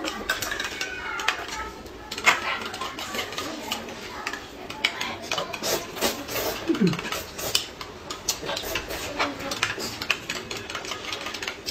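Eating at the table: chopsticks clicking and scraping against ceramic plates as noodles are picked up and slurped, with frequent sharp clicks and a short falling tone about two-thirds of the way through.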